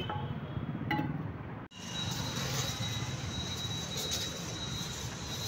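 Steady mechanical rumble and hiss that drops out briefly about a third of the way in, then resumes with a thin, steady high whine and a few faint clicks.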